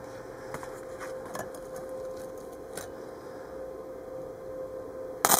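Faint steady hum with a few light clicks, then, just before the end, the arc of a Harbor Freight flux-core welder catches suddenly and loudly on stainless exhaust pipe, running 0.030 wire.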